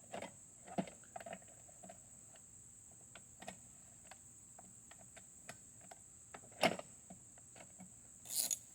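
Light scattered clicks and taps of hand tools on metal and plastic as a lawnmower's top cover and its fasteners are worked loose, with one sharper knock about two-thirds of the way through. A steady high-pitched tone runs underneath.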